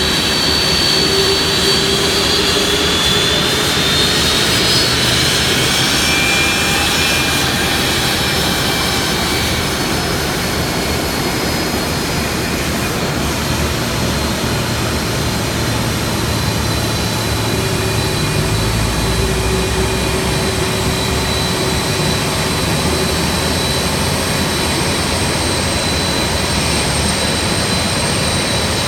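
Boeing 767's twin turbofan jet engines running at low taxi power: a steady, loud noise with a high whine whose pitch slides a little during the first several seconds, and a brief low rumble about two-thirds of the way through.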